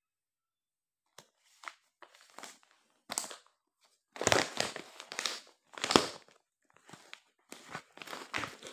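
Packaged lawn suit fabric being handled and unfolded: irregular rustling and crinkling that starts about a second in, loudest around the middle.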